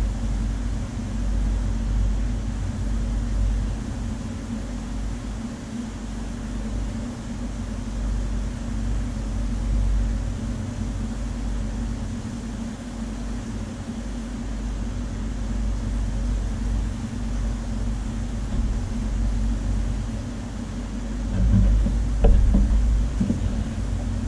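Steady low machine hum with a deep, uneven rumble beneath it, typical of the pumps and water circulation running a large aquarium. It swells briefly louder, with a few faint knocks, near the end.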